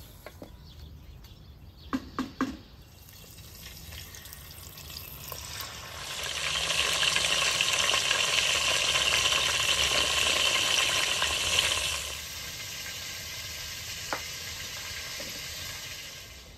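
Chicken pieces frying in hot oil in a glazed clay pot: a loud, steady sizzle that starts suddenly about six seconds in and settles to a quieter sizzle about twelve seconds in. Before it, a few light knocks of a spoon against a steel pot of frying pomegranate seeds.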